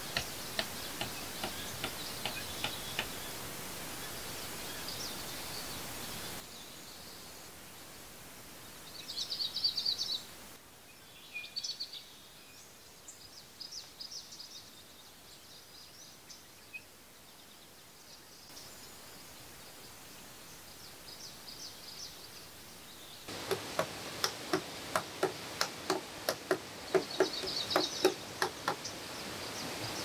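Hammer strikes on green bamboo roofing poles, with a steady run of blows about two a second near the end, and birds chirping at times.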